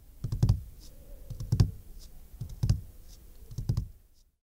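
A few short, dull knocks, roughly a second apart, over a faint hum; the sound cuts off abruptly near the end.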